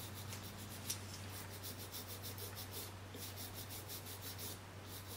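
Small brush scrubbing an iPhone 4S logic board wet with cleaning solution: quick, light scratchy strokes, several a second, over a low steady hum.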